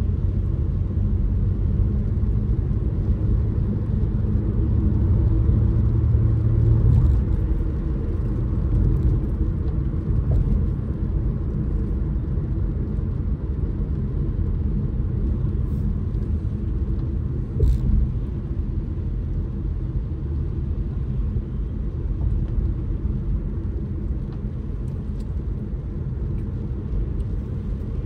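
Car driving along, a steady low rumble of engine and road noise, fuller in the first several seconds. A short bump a little past halfway.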